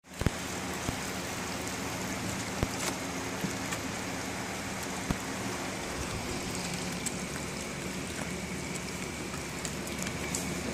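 Garden hose running water into a plastic kiddie pool: a steady rushing and splashing, with a few light knocks scattered through.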